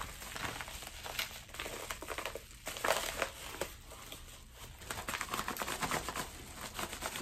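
Yellow padded envelope being opened and handled, its paper and plastic crinkling and rustling unevenly, loudest about three seconds in.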